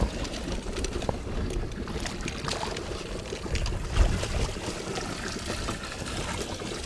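Water splashing and trickling aboard a fishing boat, with scattered clicks and a single thump about four seconds in.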